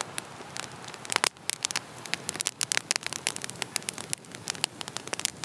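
Wood fire crackling, with irregular sharp pops over a steady hiss.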